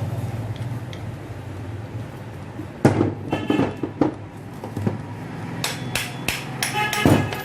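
Sharp metallic knocks and clinks, about eight at irregular spacing from a few seconds in, each with a brief ring, as metal parts of a DeWalt angle grinder are tapped and handled during dismantling. A low steady hum sits underneath.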